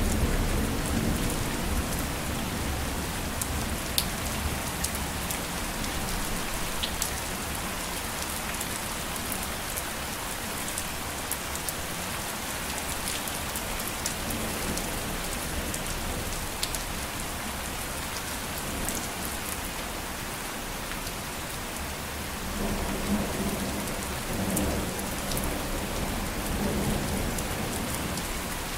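Steady rain falling, with scattered sharp drop taps. A low rumble of thunder fades at the start and swells again near the end.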